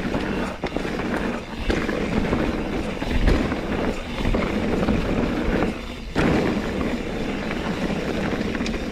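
Mountain bike ridden along a dirt trail: a steady rush of wind and tyre noise, with short rattles from the bike, dipping briefly about six seconds in.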